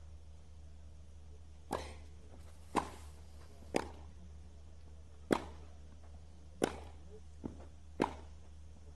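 Tennis rally: the ball struck back and forth by rackets, six sharp hits spaced about a second to a second and a half apart, with a fainter knock between the last two.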